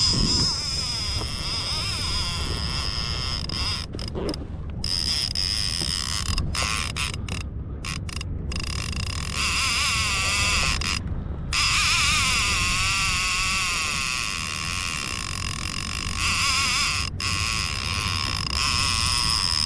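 Fishing reel drag buzzing as a hooked fish, likely a striped bass, pulls line off. The high whine wavers in pitch and stops briefly several times, over a low steady rumble.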